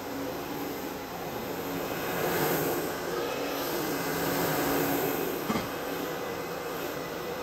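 Electric carpet scrubber running steadily as it is pushed over carpet, its brushes working the pile with a whirring hum, a little louder for a few seconds in the middle. A short knock near the end.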